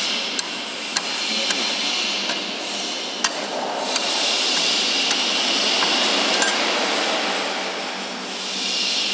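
Metal spatulas clinking and tapping on the steel cold pan of a fried ice cream roll machine, a handful of sharp clicks over a steady running noise.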